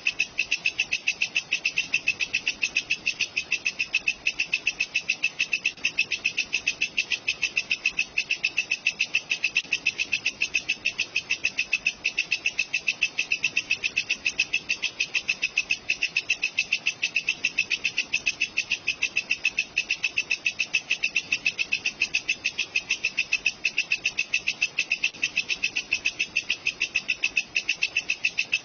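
Walang kecek bush cricket calling: a fast, even, unbroken train of high chirping pulses, several a second.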